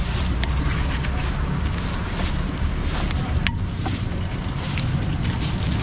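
Stone pestle grinding and scraping peanut chilli sauce in a wide stone mortar, with a few short sharp knocks, over a steady low rumble.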